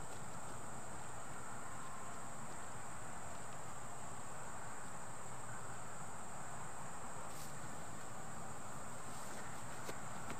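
Field insects, such as crickets, chirring steadily in one continuous high-pitched hum.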